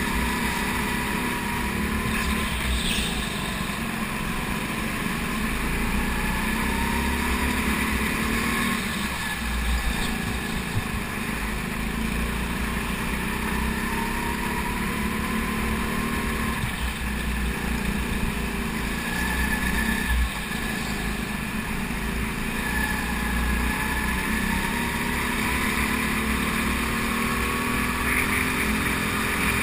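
Go-kart engine heard from onboard at racing speed, its pitch rising as it accelerates out of corners and falling as the throttle comes off, over and over through the lap.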